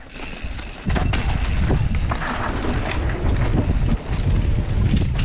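Wind buffeting a helmet-mounted camera's microphone over the rumble and clatter of a downhill mountain bike running fast over a rough dirt trail, getting louder about a second in.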